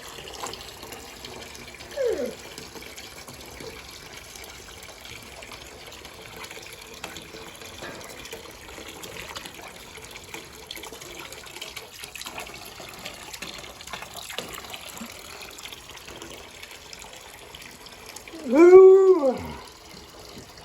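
Water running steadily. A brief falling whine sounds about two seconds in, and near the end a louder whining call, about a second long, rises and then falls.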